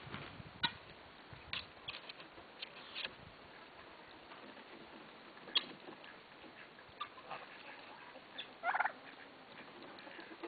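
Mixed backyard poultry flock calling now and then: scattered short, faint calls every second or two over a quiet background, with one slightly longer call near the end.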